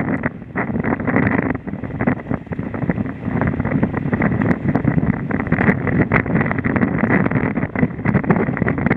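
Storm wind buffeting the microphone on a sailing yacht's deck, rising and falling in gusts, over the rush of breaking sea.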